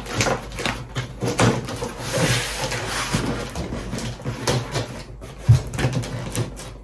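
A cardboard delivery box being opened and its packing handled: rustling, scraping and small knocks, with one sharp knock about five seconds in.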